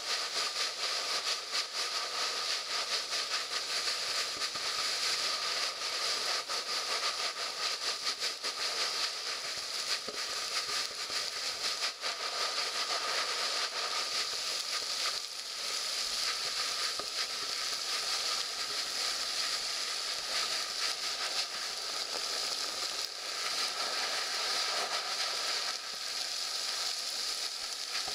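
Water jetting up out of a street storm-drain grate and splashing back onto the pavement, a steady hissing spray. The drain is overflowing, forced back up by typhoon flood water.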